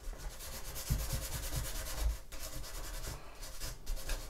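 Hand sanding thin wooden planking, a small piece of sandpaper rubbed over the cut edge in repeated uneven strokes with short pauses, shaping a curve.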